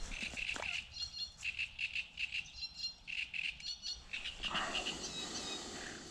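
Songbirds singing in quick runs of short repeated chirps, with higher whistled notes over them. A short burst of rushing noise comes through a little past the middle.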